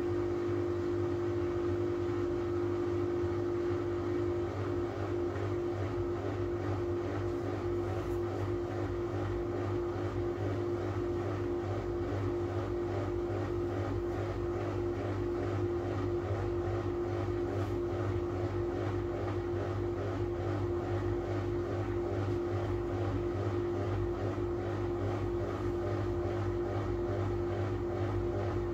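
Miele W433S washing machine in an intermediate spin, the drum turning at low speed, which the owner puts at about 300 rpm, with a steady motor hum and whine.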